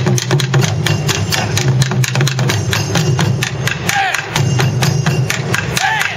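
Ensemble of taiko drummers beating nagado-daiko barrel drums in a fast, driving rhythm of dense strikes. Short shouted calls from the drummers cut through about four and six seconds in.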